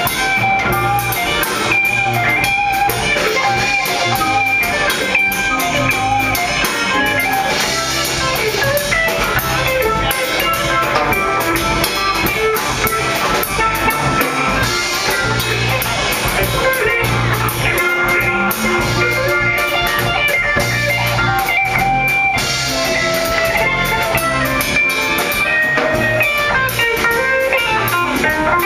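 Live jazz band playing a waltz, with electric guitar to the fore over drum kit and bass.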